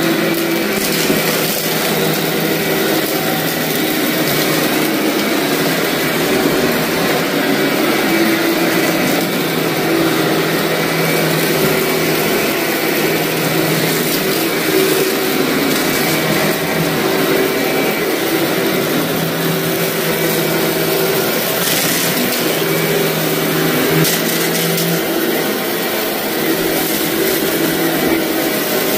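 Vacuum cleaner running steadily over a heavily soiled carpet, with scattered crunching crackles as grit and debris are sucked up.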